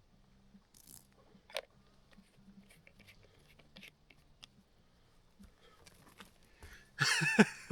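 Faint handling sounds of camping gear being worked by hand: scattered small clicks and rustles, with one sharper click about one and a half seconds in. Near the end a much louder voice comes in.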